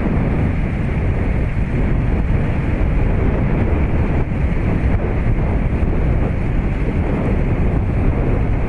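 Storm wind buffeting the microphone: a loud, steady low rumble of noise with no distinct pitched sound in it.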